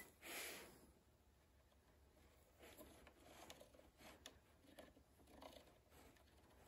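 Faint, irregular clicking of a car stereo head unit's rotary knob being turned step by step to scroll through a file list, with a short soft rustle right at the start.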